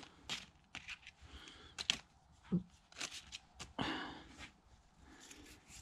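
Hands handling small fuel lift pump parts on a workbench: scattered light clicks and taps, with a short rustle about four seconds in.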